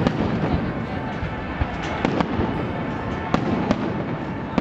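Aerial fireworks shells bursting. Sharp bangs come near the start, twice about two seconds in and twice more a second or so later, over a continuous din of the display.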